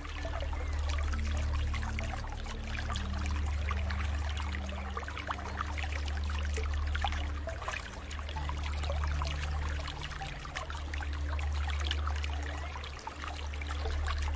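Water trickling and pouring steadily, full of small splashes, over low held notes that shift pitch every few seconds.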